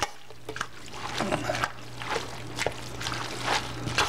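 Sauced lo mein noodles being tossed and stirred in a stainless steel bowl: irregular wet, sticky squishing and scraping strokes, with a louder stroke near the end.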